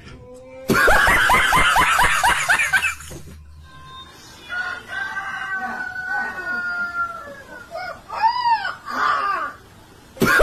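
A quick run of snickering laughter, then a young puppy howling: long wavering cries, ending in two short rising-and-falling yelps.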